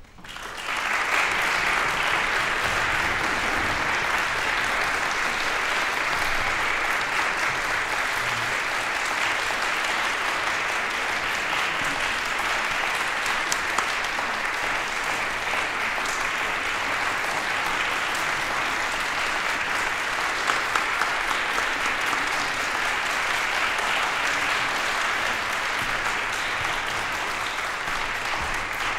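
Audience applauding in a hall, breaking out suddenly and holding steady at full strength.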